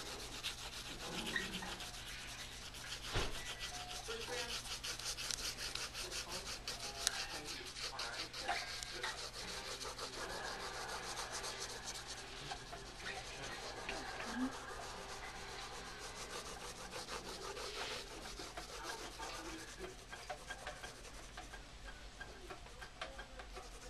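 Pencil shading on sketchbook paper: quick scratchy back-and-forth strokes that rasp steadily and grow fainter over the last few seconds.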